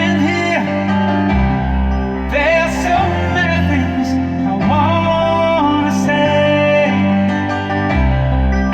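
A song with singing over guitar and steady bass notes, played through a car audio system tuned for sound quality: DLS Nordica 6.2 front component speakers run actively, with the subwoofer switched off.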